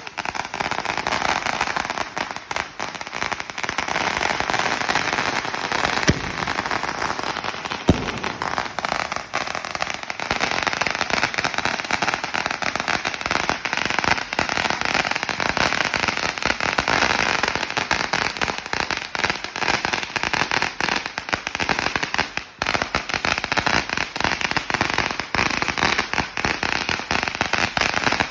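A long firecracker roll going off in a continuous, rapid crackle of small bangs, with two louder single bangs about six and eight seconds in.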